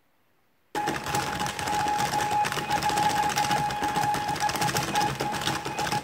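Six stepper motors of a Rubik's cube-solving robot turning the cube's faces in rapid succession: a dense clatter of clicks over a steady whine. It starts suddenly just under a second in and stops abruptly at the end, about five seconds of solving.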